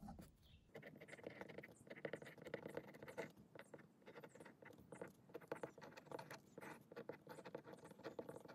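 Pen nib scratching across paper in many quick, irregular strokes as words are handwritten; faint.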